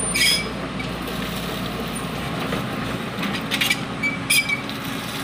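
XCMG XE80C excavator's diesel engine running steadily as the machine travels forward on its crawler tracks, with a few sharp metallic clicks.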